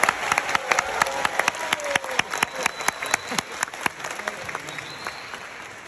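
Audience applauding in a concert hall, with sharp hand claps from close by standing out over the general clapping and a few voices. The applause thins out and fades over the last couple of seconds.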